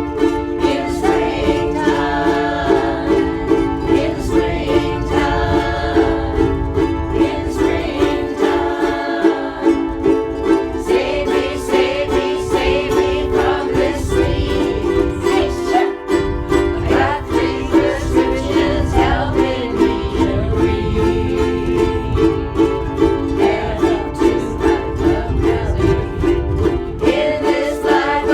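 A group of ukuleles strumming chords together in a steady rhythm, with voices singing along.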